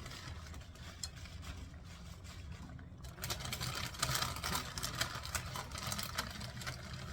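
Garlic and bell peppers sizzling and crackling in a pot, the crackle getting busier about three seconds in, over a steady low hum.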